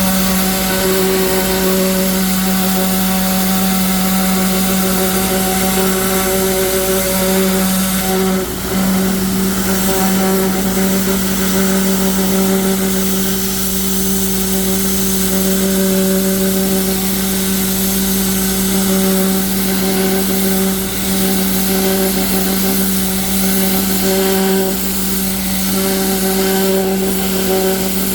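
A 6750 psi pressure washer running steadily at full pressure, its motor and pump giving a constant drone under the hiss of the spray on a block wall.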